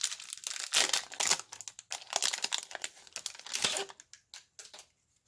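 Wrapper of a 2018 Topps Series 1 baseball card fat pack being torn open and crinkled: dense crackling that thins to a few small clicks and stops about a second before the end.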